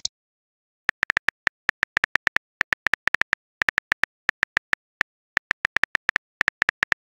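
Smartphone keyboard tap sounds, one short click per letter typed, in a quick uneven run of about six a second with a brief pause partway through.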